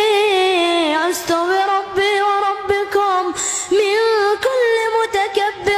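A high young voice chanting Quran recitation in melodic tajweed style, holding long ornamented notes that waver and turn, with short breaks between phrases.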